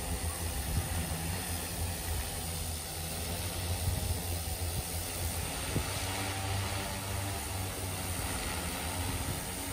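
Large carbon-fibre hexacopter hovering, its six DJI E2000 motors and propellers giving a steady, low droning hum.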